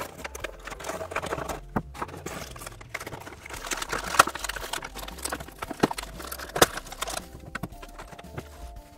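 Clear plastic packaging crinkling and crackling in irregular bursts as a toy tray wrapped in plastic is handled and pulled about.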